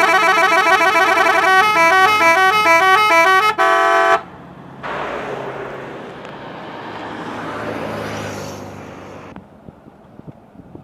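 Minibus telolet horn playing a fast warbling multi-tone tune, then a stepped melody, ending on a short held chord about four seconds in. A steady rushing noise follows for several seconds and cuts off suddenly.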